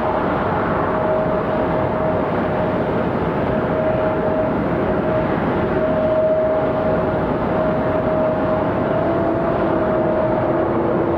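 Boeing 717-200's Rolls-Royce BR715 turbofans at takeoff power on departure: a steady jet engine rumble with a high, even whine, joined by a second, lower whine near the end.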